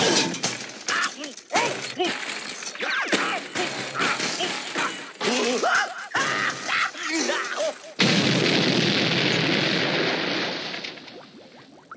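Cartoon explosion sound effect: a sudden loud blast about eight seconds in, which rumbles on and fades away over about three seconds. Before it comes a quick run of cartoon crashes, clatters and wavering sound effects.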